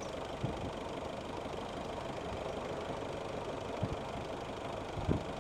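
Mitsubishi Pajero's diesel engine idling with an even clatter, heard close through the open bonnet, with a few soft low thumps. The engine has been running hot and has lost its radiator water, which is being topped up.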